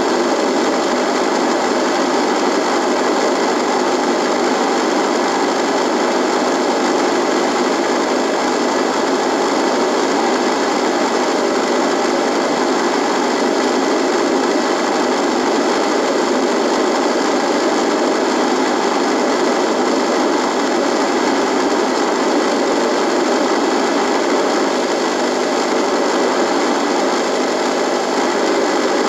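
Radio buzzing: a steady, even hiss of static with a buzz running through it, unchanging throughout.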